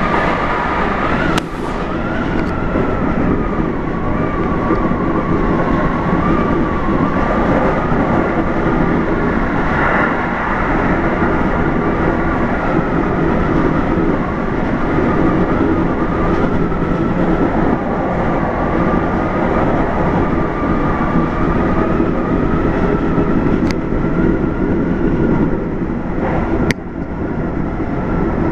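JR Hokkaido 711 series AC electric multiple unit running at speed, heard from the front of the train: a steady rumble of wheels on rail with a wavering whine, and a few sharp clicks, one about a second and a half in and two near the end.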